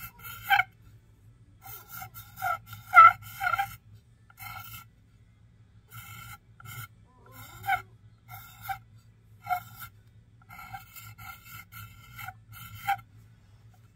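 Water-dipped underglaze pencil scratching across a bisque-fired clay plate in short, uneven strokes, each with a light ringing rasp, quickening to about three strokes a second near the end.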